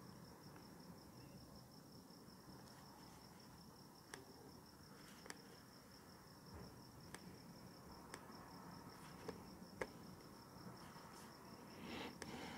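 A cricket chirping in a fast, even, unbroken trill, faint and steady, with a few scattered laptop keyboard taps.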